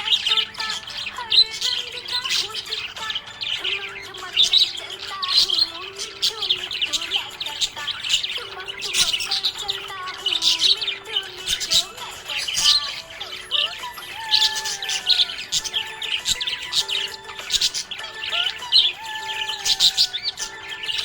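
Budgerigars chirping and warbling in rapid, dense, unbroken chatter, with soft background music of held notes underneath.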